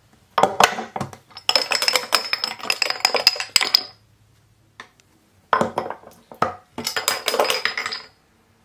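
Two bottle caps knocked off by the game's wall-mounted bottle opener, each dropping and clattering down through wooden dowel pegs behind plexiglass with a ringing metallic rattle. The second run starts about five and a half seconds in.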